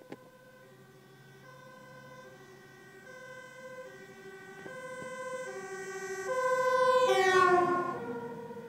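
Dutch fire engine's two-tone siren alternating between a high and a low note about every 0.7 seconds, growing louder as it approaches. Its pitch drops sharply as it passes close by about seven to eight seconds in, the loudest moment.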